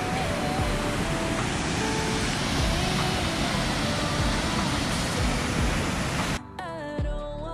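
Steady rush of river water pouring through a narrow rock gorge and over a waterfall. A little over six seconds in it cuts off abruptly and background music takes over.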